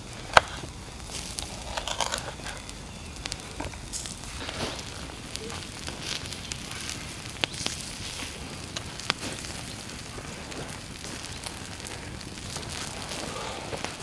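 Wood campfire crackling, with scattered sharp pops and clicks, the loudest about half a second in.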